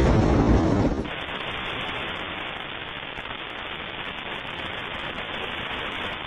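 Loud, deep rumble of a blast that breaks off suddenly about a second in, followed by a steady, even hiss.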